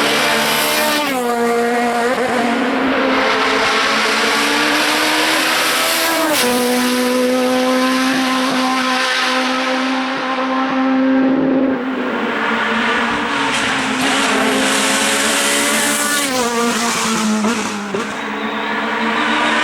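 Racing car engine at high revs, its pitch climbing and then dropping sharply three times, about a second in, about six seconds in and near the end, as it changes gear.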